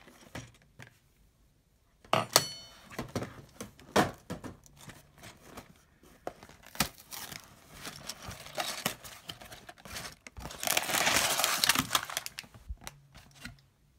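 Cardboard Lego box being torn open, a sharp tearing burst about two seconds in, followed by scattered clicks, knocks and rustling as the contents come out. Near the end a clear plastic bag of Lego pieces crinkles loudly for about two seconds.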